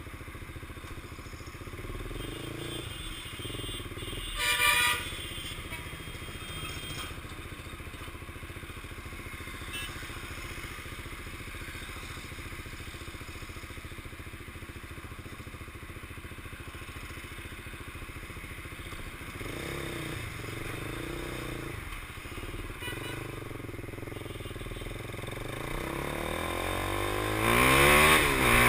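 KTM 390 Duke's single-cylinder engine running at low speed in traffic, with a horn beeping briefly about five seconds in. Near the end the engine revs up, rising in pitch, as the bike accelerates, and wind noise grows louder.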